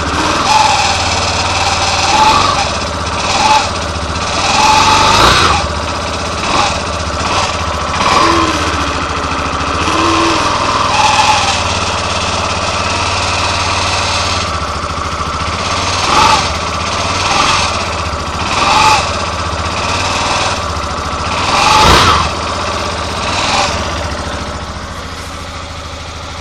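Yamaha Fazer 250 Blueflex's air-cooled single-cylinder engine idling after a cold morning start, with a short creaking squeal that comes and goes every second or two. The creak was traced to a faulty starter clutch plate.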